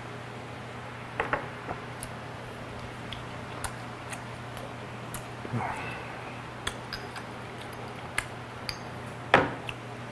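Glass clinks and knocks of a soju bottle and shot glass on a table: a couple of taps about a second in, then soju poured into the shot glass with a short rising gurgle around the middle. The loudest knock comes near the end as the bottle is set down. A steady low hum runs underneath.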